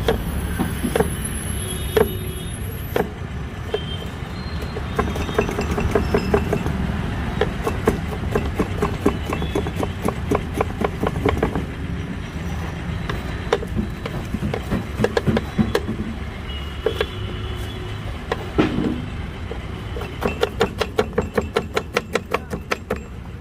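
Long kitchen knife chopping onion and green pepper on a wooden board: runs of quick sharp taps of the blade on the wood, fastest near the end. Under them a steady low rumble of street traffic.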